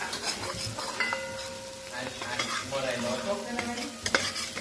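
Steady sizzling of food cooking in a hot pan on a gas stove, with a sharp click a little after four seconds in.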